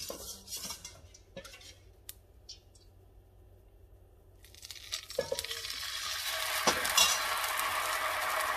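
A few light clinks of utensils against a frying pan. Then, about four and a half seconds in, rice-flour bánh cuốn batter is poured into the hot oiled pan and starts sizzling, and the sizzle stays steady, with a couple of sharp clinks as it begins.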